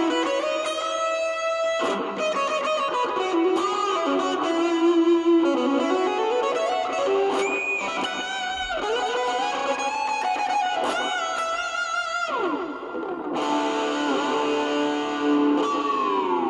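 Distorted electric guitar playing lead lines with string bends, vibrato and slides, through overdrive and distortion with hall reverb and a Strymon Brigadier delay. A long slide down comes about twelve seconds in.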